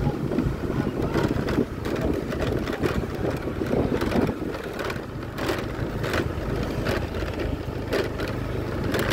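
Wind buffeting the microphone over a low steady engine hum, with scattered light clicks and knocks.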